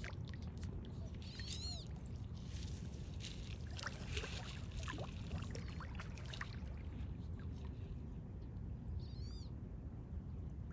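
Water splashing and sloshing through the middle as turtles feed, over a steady low rumble. A short, high chirp sounds near the start and again near the end.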